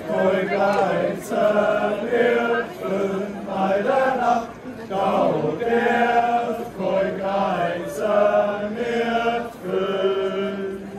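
A group of voices singing together in unison, in short phrases of about a second each with brief breaks between them.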